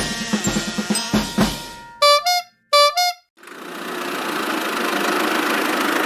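A drum-kit music beat stops about two seconds in and two short cartoon vehicle-horn honks follow. Then a steady vehicle engine sound fades in and keeps running.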